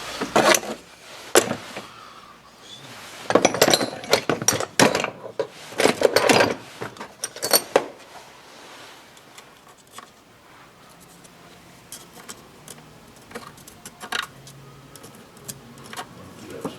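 Metal tools and parts clinking and clattering as they are handled and set down. Sharp clinks come in a busy stretch over the first eight seconds or so, then thin out to lighter taps.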